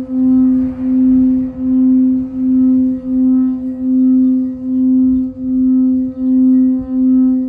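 Frosted quartz crystal singing bowl sung by circling a mallet around its rim: one steady, sustained tone with fainter higher overtones. The tone swells and dips in an even pulse a little more than once a second.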